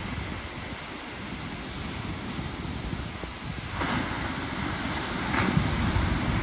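Ocean surf with wind buffeting the microphone; a louder rush of breaking wave water comes in about four seconds in and again a second later, with the low rumble building toward the end.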